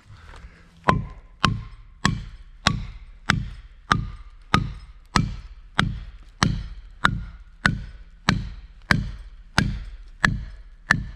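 Steady series of hard hammer strikes, about one and a half a second, each with a short ring: a felling wedge being driven into the cut of a tree to tip it over.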